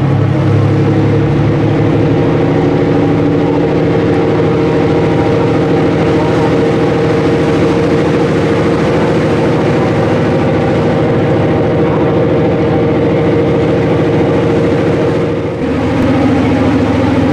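The engine of the Garinko icebreaker sightseeing boat running steadily under way, with water churning in its propeller wash. About fifteen seconds in, the engine note dips briefly and settles at a different pitch.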